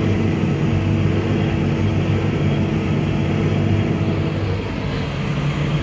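Tractor engine running steadily at working speed, a continuous low-pitched hum. It eases off slightly about four and a half seconds in.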